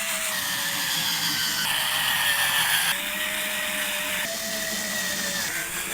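Electric screwdriver motor whining steadily as it drives an old-style slotted screw, its pitch dipping and shifting a few times under the changing load. Slotted screws are hard for an electric driver to turn.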